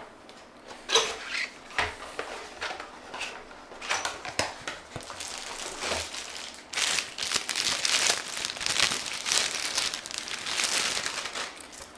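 Packaging of an alarm control panel being unwrapped by hand: crinkling and rustling with scattered handling clicks. It is sparse at first and becomes a dense, continuous crinkling from a little past halfway until near the end.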